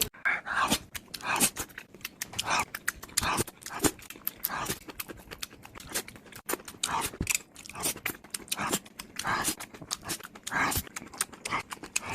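Close-miked eating sounds: steady chewing with many sharp wet mouth clicks and short breathy puffs about once a second.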